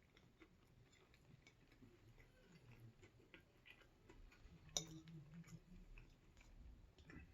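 Faint close-up eating sounds: quiet chewing with scattered small mouth clicks, and one sharper click a little over halfway through.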